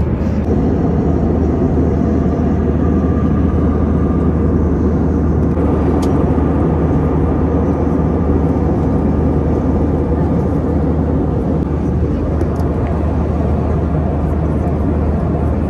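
Steady airliner cabin noise in flight: the even, low rumble of the jet engines and airflow heard from inside the passenger cabin.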